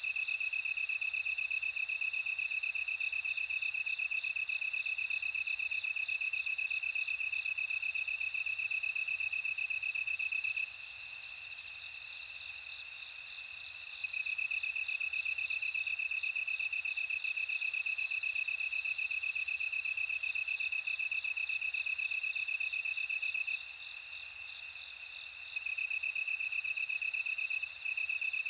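Bell crickets singing: overlapping high, ringing trills, one steady and lower, the other higher and in short phrases that start and stop. The lower trill drops out for a couple of seconds in the last third.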